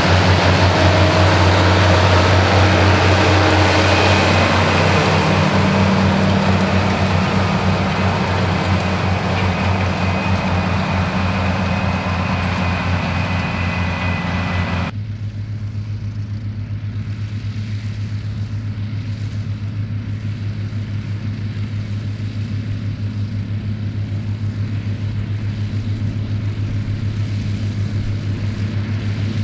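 Big six-cylinder Ford diesel tractor engines running steadily under load while pulling disc cultivators through soil, a deep drone with a rushing clatter. About halfway through it changes abruptly to a quieter, duller and more distant engine drone.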